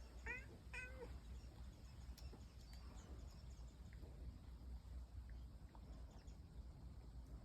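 Domestic cat giving two short, faint meows about half a second apart, right at the start; the rest is quiet apart from a low steady hum and a few faint ticks.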